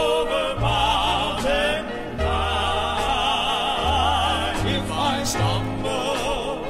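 Male Southern gospel quartet singing long held notes with wide vibrato over a steady bass line and band accompaniment.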